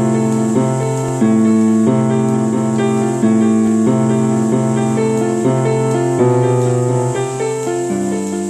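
Slow keyboard music: held piano-like chords, a new chord about every second.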